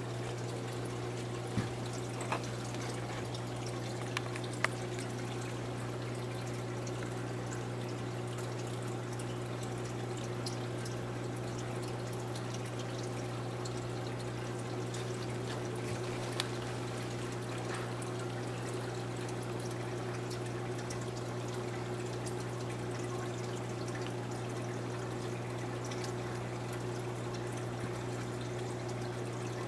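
Steady trickle of running water over a constant low hum, with a few faint clicks in the first few seconds.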